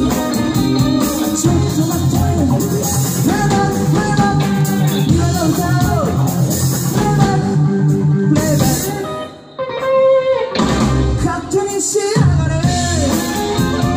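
Live band playing a pop-rock song: a woman sings into a microphone over electric guitar and drums. The band breaks off for an instant about nine and a half seconds in, then comes straight back in.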